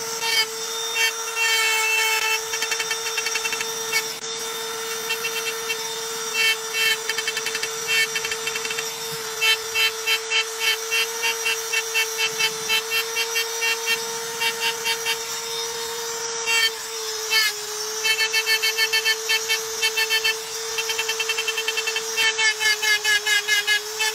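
Handheld electric engraving tool running at a steady whine while its bit cuts lines into a dark slab. The bit scrapes in bursts of rapid ticking as each stroke is cut.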